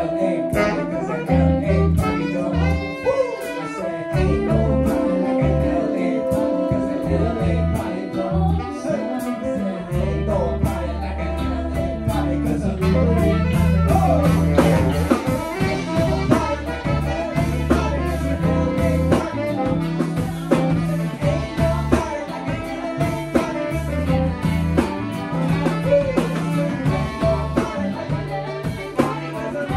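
Live band playing a groove: two saxophones, electric guitar, keyboard, bass and drums, with singing over it. The bass comes in fuller about ten seconds in.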